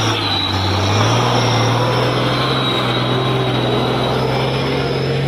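Diesel engine of a 220 PS truck loaded with coal, running hard under heavy throttle; its pitch climbs about a second in and then holds steady.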